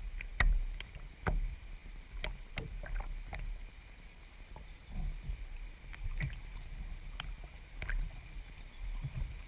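Water splashing and lapping against a canoe as it is paddled along a river: irregular small splashes and drips about a second apart over a low, steady rumble.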